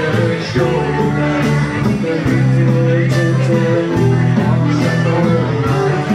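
Live band playing a rock song: acoustic guitar and drum kit over long, sustained low bass notes, with a steady beat.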